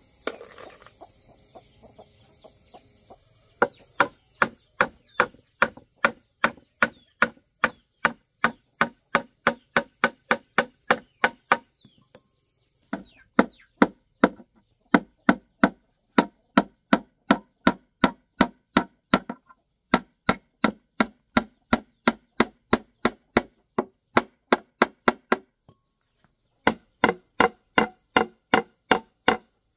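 Rhythmic chopping with a blade on wood, about two and a half strokes a second, in runs of several seconds broken by short pauses. A chicken clucks briefly at the very start.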